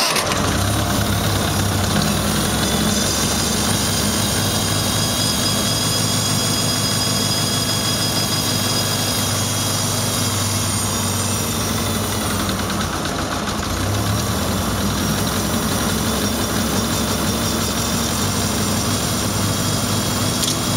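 Four-cylinder flathead engine of a 1972 International Harvester Farmall Cub idling steadily, cold, having just caught on a restart.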